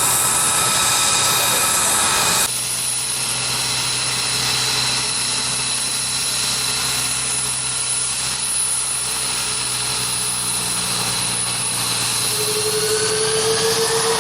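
Jet aircraft engine noise. It is loud at first and cuts off abruptly about two and a half seconds in, giving way to a steadier, quieter engine drone; a rising whine comes in near the end.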